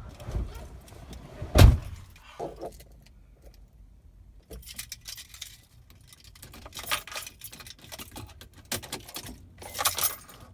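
One loud thump about a second and a half in, like a car door shutting, then keys jangling on and off through the second half.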